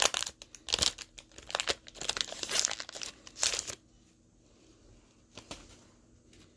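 Foil Pokémon booster pack wrapper crinkling and tearing as it is opened: a rapid run of crackles for about four seconds, then only a few faint clicks.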